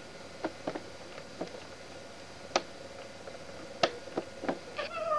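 Scattered sharp clicks and taps from a handheld home camcorder being moved about close against bedding, the loudest two about two and a half and four seconds in. A brief small vocal sound follows just before the end.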